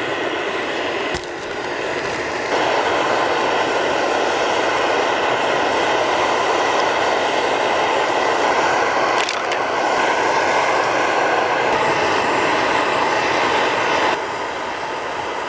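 Mountain stream rushing over rocks: a steady, loud wash of water noise. It gets louder about two and a half seconds in, dips briefly around nine seconds, and drops back near the end.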